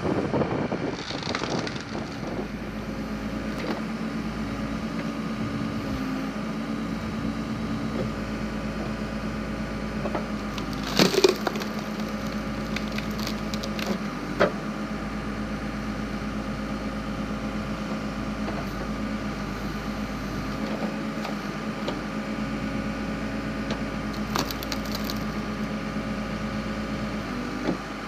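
Backhoe engine running steadily while its hydraulic log splitter forces through a log, the wood cracking and splintering; the loudest crack comes about eleven seconds in, with smaller cracks later.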